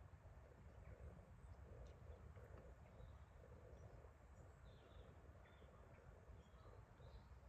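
Near silence: faint, scattered bird chirps over a low outdoor background rumble.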